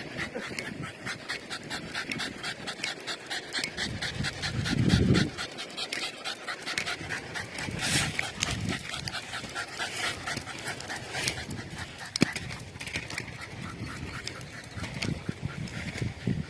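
A tired dog panting fast and evenly, about four to five breaths a second, as it runs alongside. A brief low rumble about five seconds in is the loudest moment.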